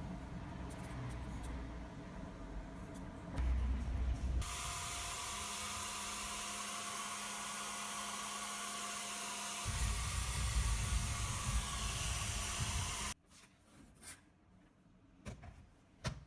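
Hand-held hair dryer switched on about four seconds in, running with a steady hiss of air and a motor hum, with heavier low buffeting from about ten seconds in. It is blowing on a MacBook Air to dry it out, since the laptop will only power on after being dried. It cuts off suddenly about thirteen seconds in, followed by a few faint clicks.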